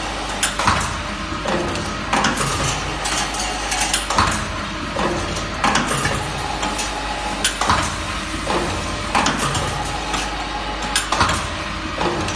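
Automatic bucket wire handle making machine running: repeated sharp metallic clacks, about one or two a second, as it forms wire bucket handles, over a steady low hum.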